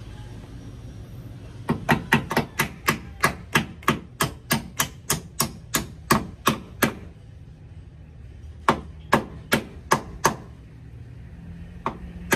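Hammer striking a greased hinge pin, driving it upward into the new bushings of a Nissan Urvan front door hinge. A quick run of about four blows a second, a pause, then a handful of slower blows, and more blows starting near the end.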